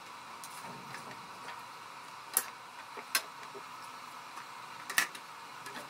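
A few sharp clicks and taps as a metal framing square is handled and lifted off a wooden board, the loudest two about two and a half and five seconds in, over a steady faint hiss.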